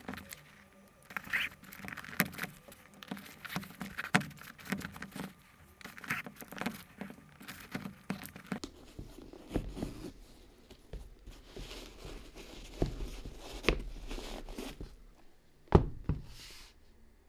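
Handling sounds of a sneaker being worked on by hand: irregular scratchy rustling and light taps, with two sharp knocks a moment apart near the end.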